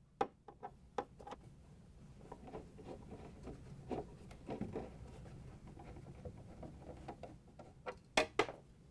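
Nut driver backing out the screws of a refrigerator ice container: faint scraping with scattered small clicks, and two sharper clicks a little after eight seconds.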